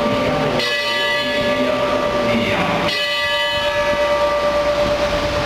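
Altar bells ringing at the elevation of the host during Mass. It is a sustained metallic ringing, rung again about half a second in and again about three seconds in.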